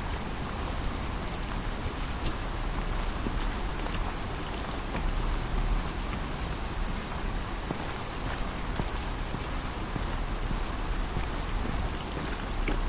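Steady rain falling, with many sharp raindrop ticks close by over an even patter.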